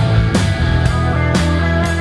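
Rock music with a steady drum beat, about two hits a second, over sustained bass and guitar.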